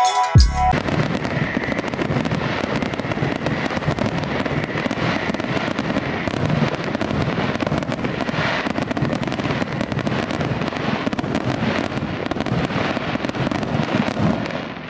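Fireworks display: a dense, unbroken crackle of many small pops and bangs. Before that, music with drums cuts off abruptly under a second in.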